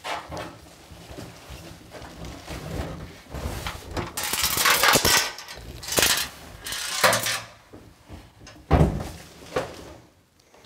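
A loose part, which the owner suspects is a screw dropped in during assembly, sliding and rattling inside a GE Profile built-in microwave's casing as the unit is tipped back and forth. It comes in several bursts of clatter, the longest about four to five seconds in, with the scuffs of the microwave being handled.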